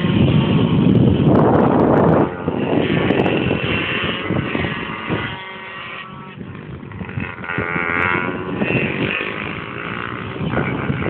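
125 cc pit bike engine revving up and down as the bike laps a kart track, running on a modified carburettor with its vents closed. The engine note fades in the middle and grows louder again near the end, with heavy wind rumble on the microphone for the first two seconds.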